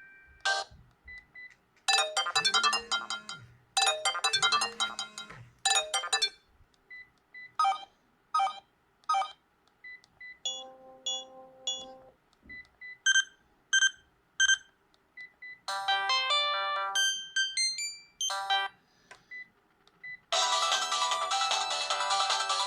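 Sharp GX15 mobile phone ringtones: a series of different short melodies played one after another, each breaking off after a second or two, with short beeps between some of them. A fuller, louder tune starts about 20 seconds in.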